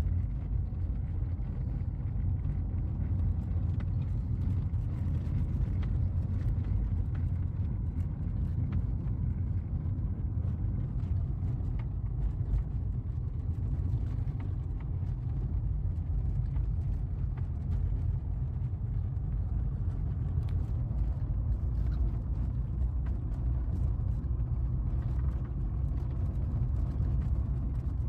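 Steady low rumble of a moving car, with faint scattered clicks and rattles.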